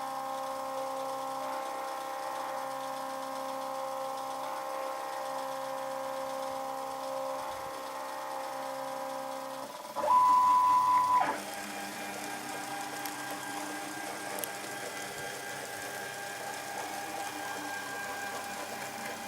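Homemade CNC engraving and milling machine running, its motors giving a steady whine of several tones. About ten seconds in, a much louder high whine comes in for a little over a second, after which the machine runs on with a changed pitch.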